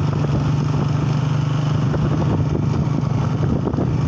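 Motorcycle engine running steadily while riding at an even speed, its hum holding one pitch throughout.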